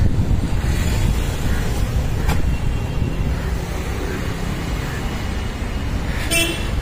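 Steady, low street traffic noise from passing road vehicles, with a click a couple of seconds in and a short high-pitched beep near the end.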